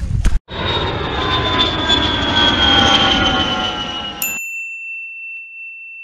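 Logo-intro sound effect: an airplane passing, its whine sliding slowly down in pitch, then cut off about four seconds in by a bright chime that holds one high note. A brief low thud comes at the very start.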